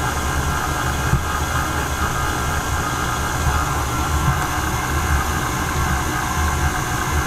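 KitchenAid Classic Plus stand mixer running steadily, its motor humming with a steady whine as the beater cuts cold butter into flour to a crumble for pie pastry.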